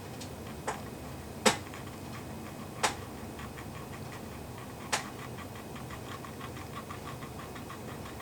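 Quartz wall-clock movement ticking after being put back together: four sharp clicks in the first five seconds, then a quick, even run of faint ticks.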